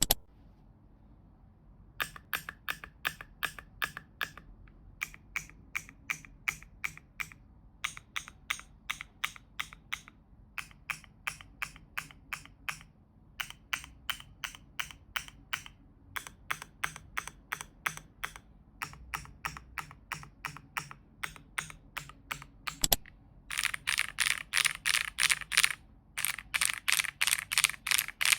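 Typing on a KiiBoom PHANTOM81 V2 mechanical keyboard with pink transparent keycaps: quick runs of keystrokes broken by short pauses, with the soft, higher-pitched 'koto-koto' key sound. About 23 s in one sharper click is followed by louder, faster typing.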